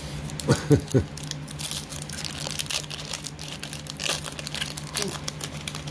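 Foil booster-pack wrapper of Magic: The Gathering cards being crinkled and torn open, a dense run of quick, sharp crackles.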